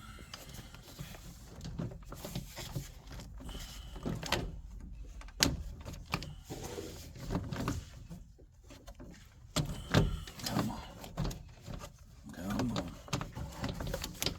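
Hand-work noises on a Geo Metro's door trim panel: scattered clicks, taps and rustling of plastic trim and tools being handled, with sharper knocks about five and a half and ten seconds in.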